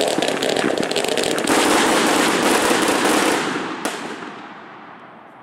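Fast-fused fireworks going off in a dense volley of sharp crackling reports that merge into a continuous loud rumble for about three and a half seconds. One more sharp bang comes near the end, and then the sound dies away.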